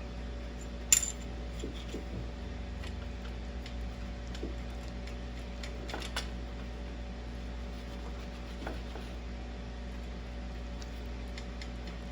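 Cutlery clinking and tapping against a dish: one sharp clink about a second in, then a few lighter taps, two of them close together around six seconds. A steady low hum runs underneath.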